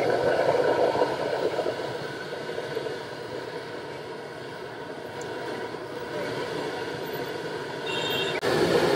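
Hot oil sizzling steadily as battered pork pieces deep-fry in a large wok, stirred with a wire spider strainer; the sound eases off in the middle and breaks off abruptly near the end.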